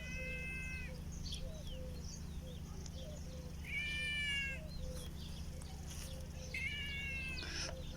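A cat meowing three times, each meow a drawn-out call about a second long, held at a fairly steady pitch.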